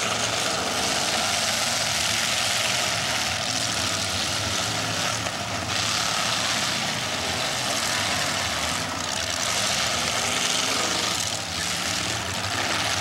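Demolition derby cars' engines running and revving together, a steady loud engine din with no single crash standing out.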